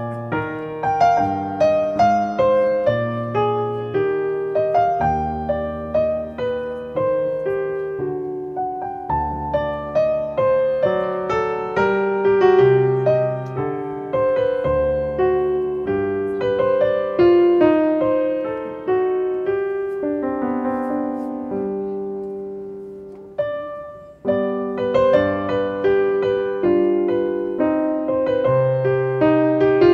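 Solo piano background music, a slow melody of single struck notes over low bass notes. About three-quarters of the way through the notes die away to a brief pause, then the playing resumes.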